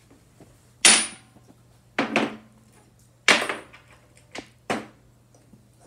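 Metal engine parts handled on a workbench: a series of sharp metallic clanks, about one a second, the first with a brief high ring.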